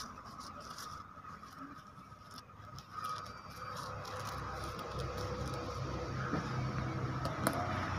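Small scissors snipping through folded tissue paper, with light paper rustling and a run of short crisp clicks. A low steady hum grows louder in the background from about halfway through.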